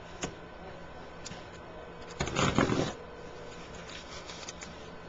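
Parts being handled during a laser-printer fuser replacement: a small click, then a short rustling scrape about two seconds in, over a steady hum.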